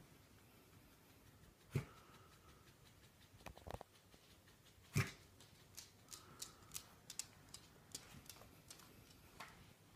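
Two miniature dachshund puppies playing on a wooden floor and rug: a couple of soft thumps, then a run of light claw clicks and scuffles.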